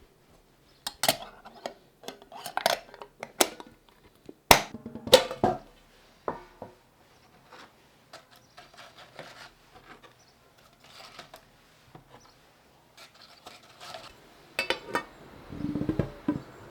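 China cups, saucers and cutlery clinking and being set down: a run of sharp knocks in the first six seconds, then quieter scattered clatter, with a denser spell of handling near the end.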